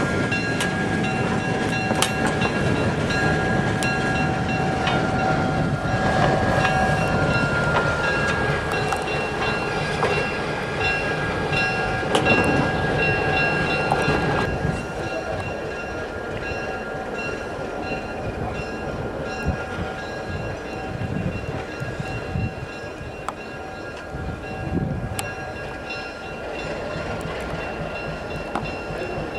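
Virginia & Truckee Railroad train pulled by the D2 diesel locomotive, moving on the track with a continuous rumble and thin high ringing tones that come and go. It gets quieter about halfway through.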